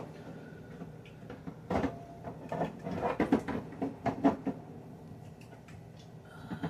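Sodas being set into a refrigerator by hand: a run of irregular light knocks and clinks lasting a few seconds, then quieter handling.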